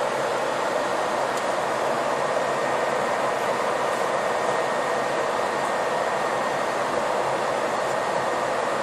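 Steady road and engine noise inside a bus cruising at freeway speed, an even rushing with a faint steady whine.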